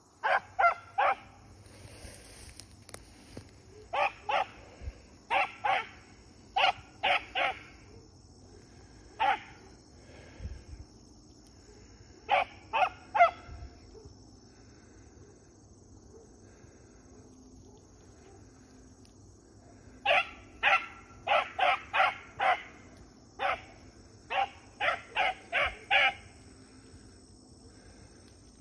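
A rabbit hound barking in quick bunches of two to six barks with pauses between, the sound of a hound giving tongue while running a rabbit's trail in the cover. A faint steady high insect chirring runs underneath.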